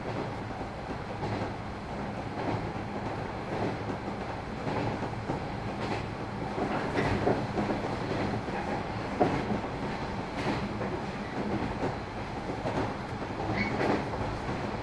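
JR 113 series electric train running, heard from inside a KuHa 111 cab trailer car. There is a steady rumble of wheels on rail with a click from the rail joints about once a second, and a brief high wheel squeal near the end.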